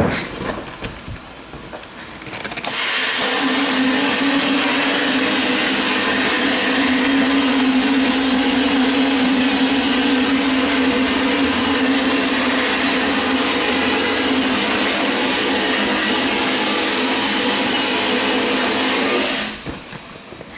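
Vapor blasting gun spraying a slurry of water and glass beads with compressed air onto an aluminium carburetor body inside a blast cabinet: a loud, steady hiss with a low hum underneath. It starts abruptly about three seconds in and cuts off about a second before the end.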